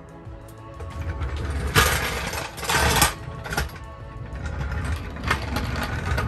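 Daytona steel floor jack being rolled out across a concrete floor, its wheels and handle rattling, loudest for about a second and a half starting near two seconds in, with shorter rattles after. Background music plays underneath.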